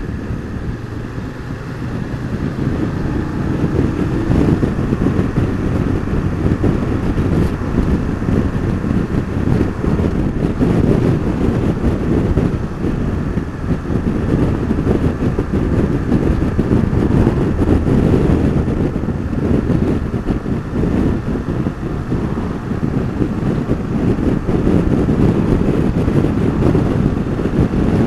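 BMW F850GS motorcycle's parallel-twin engine under way, accelerating and shifting up from third to fourth gear, mixed with wind noise buffeting the camera microphone. It gets louder a few seconds in, then runs steadily.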